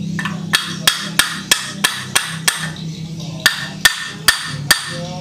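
Hammer blows on a metal pipe used as a drift against a scooter's final-drive gearbox cover, a dozen sharp ringing strikes at about three a second with a short pause midway.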